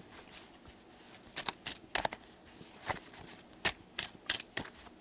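A deck of playing cards being shuffled by hand, a string of short, sharp card snaps coming at uneven intervals.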